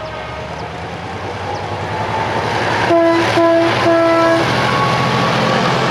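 Diesel locomotive approaching at speed, its engine growing louder, sounding its air horn three times about three seconds in: two short blasts and a slightly longer third.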